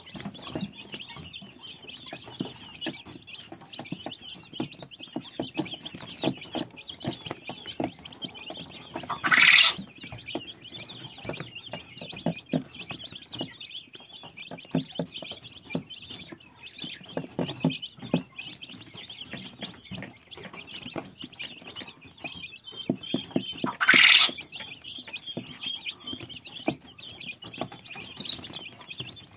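A brood of young chicks peeping continuously, many high cheeps overlapping in a steady chatter, with soft low knocks throughout. Two much louder, shrill peeps stand out, about nine seconds in and again near twenty-four seconds.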